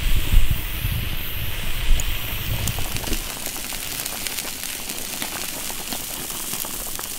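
Wood fire burning under a wok stove, with a low rumble for the first few seconds, then the broth of braising beef ribs boiling in the big wok with a steady crackly bubbling.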